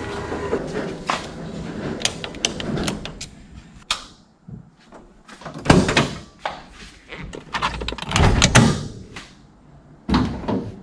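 Scattered clicks and knocks, then a few heavy thumps spaced a couple of seconds apart, in a small echoing room.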